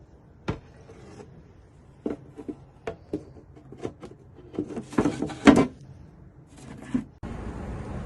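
Irregular wooden knocks and clicks of tools and parts being handled at a workbench, with a cluster of louder ones about five seconds in.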